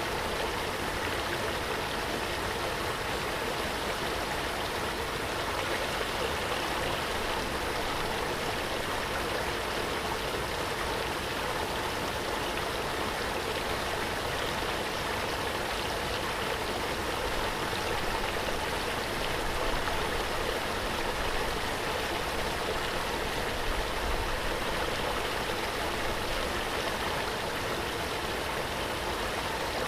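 Waterfall: falling water rushing in a steady, unbroken roar.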